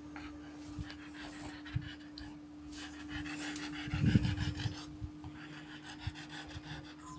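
French bulldog panting rapidly close to the microphone, in quick even breaths, with a louder low bump about four seconds in.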